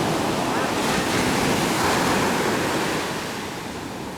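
Heavy sea surf: a wave crashing and washing in, the loud rush easing off about three seconds in.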